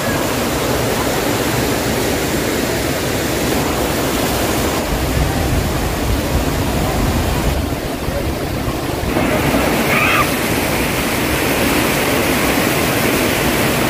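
Steady rush of water from a hill stream tumbling over rocks like a small waterfall.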